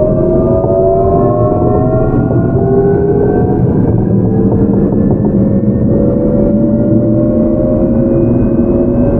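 Seoul Metro 8000 series train's GEC Alsthom GTO-VVVF traction inverter and motors whining as the train accelerates: several tones rise slowly in pitch and level off near the end, over a steady rumble of the running gear.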